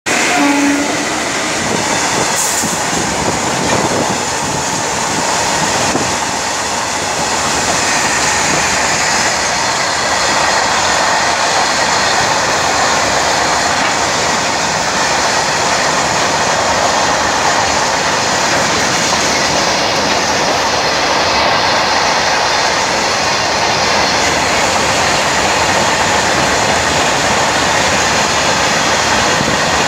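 Freight train of open wagons, hauled by two electric locomotives, running past at speed: a loud, steady noise of wheels and wagons on the track.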